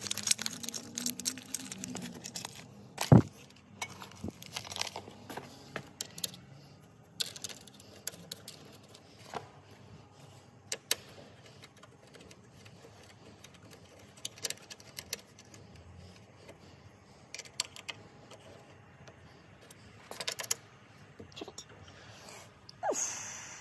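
Small metal hardware clinking and clicking as it is handled: bolts and anodized fender washers, with a plastic parts bag crinkling at the start and one sharp metal clack about three seconds in.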